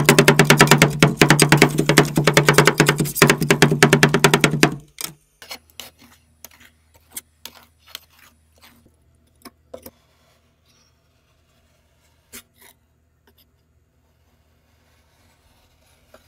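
Two metal spatulas chopping rapidly against the steel plate of a rolled-ice-cream cold plate, a fast, loud clatter with a steady low tone under it, stopping suddenly about five seconds in. After that, only occasional taps and scrapes as the spatula spreads the mix and scrapes it into rolls.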